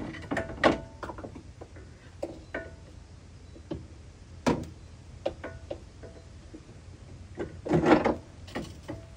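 Irregular metal clinks and knocks from hand tools and suspension hardware being worked in a car's front wheel well during a strut replacement, some with a short ringing tone. A louder, scraping rattle comes about two-thirds of the way through.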